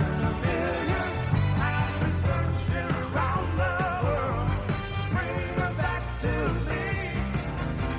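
Rock song playing as background music, with a steady drumbeat, bass and a singing voice.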